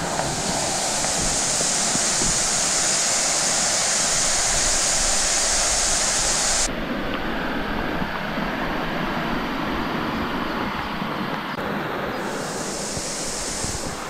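Waterfall rushing steadily. A high steady hiss lies over it for about the first half, stops abruptly, and comes back near the end.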